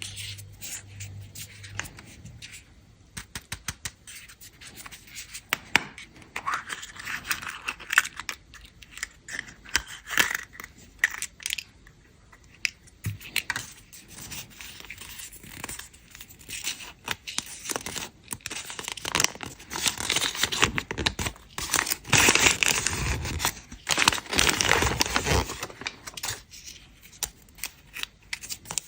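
Chocolate egg wrappers being unwrapped: crackly tearing and crinkling of the wrapping in two longer spells, with many small clicks and taps of handling in between.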